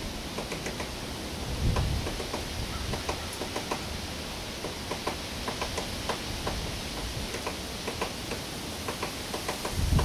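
Woodpecker pecking into the wooden siding of a house: a run of sharp taps, a few a second at an uneven rhythm, as it chips out a hole in the boards. A brief low rumble about two seconds in.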